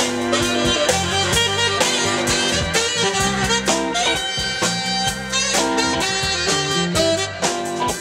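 Live band playing an upbeat groove: saxophone lead over electric guitar, keyboard and drum kit, with a moving bass line and steady drum hits.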